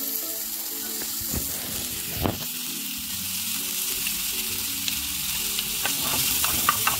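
Chopped red onion and garlic sizzling as they fry in a frying pan, a steady hiss. In the second half a wooden spoon stirs them, with a few sharp scrapes and ticks against the pan.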